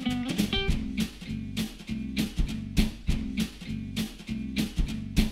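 Background music: plucked guitar over a steady beat of about two strikes a second.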